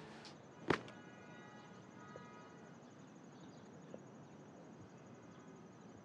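A single sharp knock a little under a second in, followed by a ringing tone that fades over a couple of seconds. Under it runs a faint, steady, high-pitched chirring of insects with a fast pulse.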